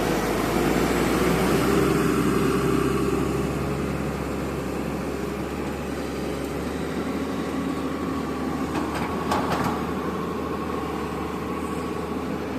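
Tata Hitachi 200 excavator's diesel engine running steadily, with a few light knocks about nine seconds in.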